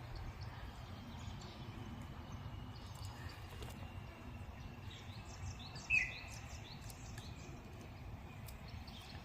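Quiet woodland ambience: small birds chirping faintly over a low steady rumble, with one short, louder chirp about six seconds in.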